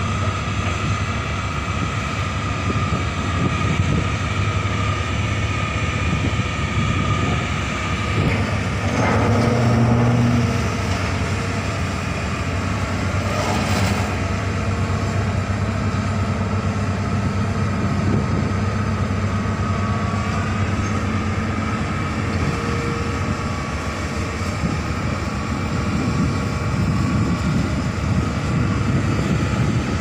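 Steady diesel machinery drone with a constant low hum and a few held higher tones. It swells briefly about nine seconds in, and a short rush of noise follows a few seconds later.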